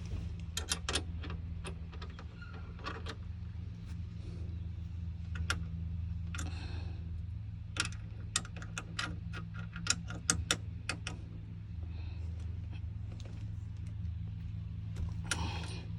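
Scattered sharp metallic clicks and clinks from hand tools and shifter hardware being worked, over a steady low hum.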